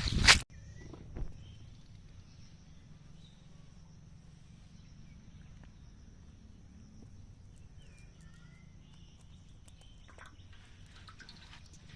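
A brief loud rush of water-like noise cuts off abruptly. Then comes quiet rural ambience: a steady high insect drone, with a few short bird chirps partway through.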